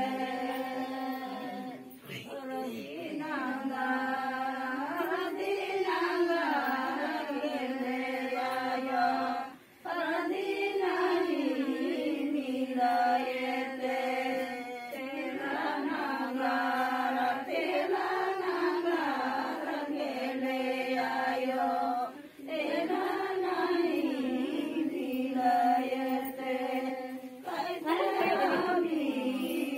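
Voices singing a repetitive chant-like song, the same rising-and-falling phrase returning about every four seconds, with brief pauses between some verses.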